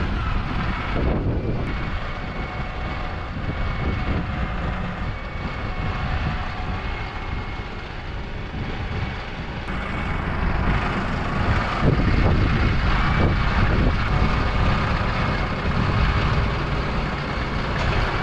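Farm tractor's engine running steadily as the tractor drives, carrying a section of boom.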